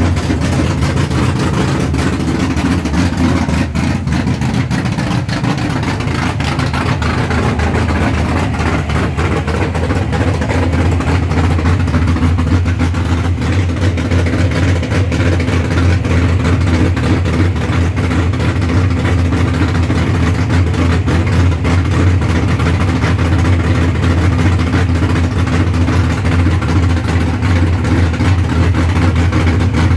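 347 cubic-inch stroker small-block Ford V8 with a solid roller cam, Victor Jr intake, 780 cfm carburettor and 1¾-inch Crites headers, idling steadily in a 1970 Ford Maverick drag car.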